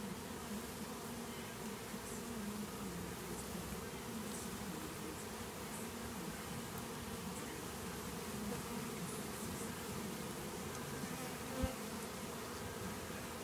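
Steady, dense buzzing of a large honey bee colony as its cluster is scooped by hand from an old hot water tank. A single brief knock near the end.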